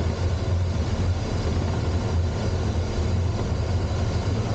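Steady rush of airflow with a low hum inside the cockpit of a Duo Discus two-seat glider in flight.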